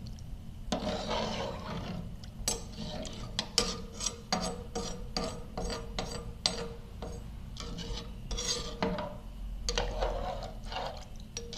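Metal slotted spoon stirring chicken pieces in a pot of watery curry, scraping along the bottom and sides of the metal pot. Through the middle it knocks and clicks sharply against the pot many times.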